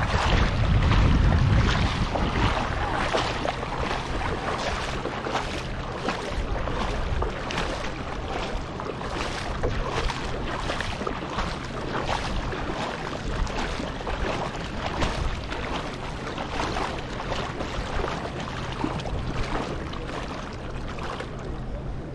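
Wind buffeting the microphone, gustiest in the first couple of seconds, over shallow water splashing and lapping close by. A faint steady low hum runs underneath.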